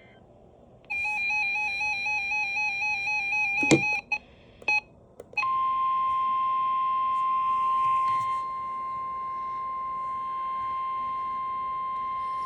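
A weather radio's warbling electronic alert beep sounds for about three seconds and ends in a sharp click. A second or so later the steady NOAA Weather Radio 1050 Hz alert tone starts and holds, the signal that a new watch or warning message follows.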